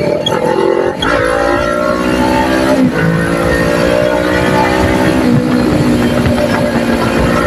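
Kawasaki Ninja 400 parallel-twin engine running under way, its note drifting slightly, with brief breaks about a second in, near three seconds and just past five seconds.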